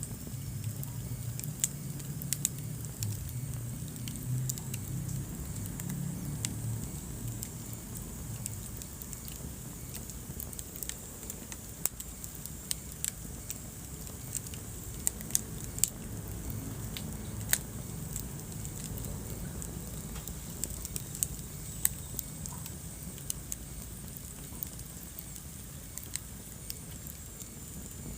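Wood fire burning in a fireplace, crackling with irregular sharp pops and snaps over a low, steady rumble of flame.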